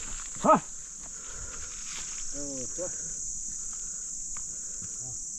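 Goats bleating: one short, loud bleat about half a second in and a fainter, lower one about two and a half seconds in, over a steady high-pitched drone of insects.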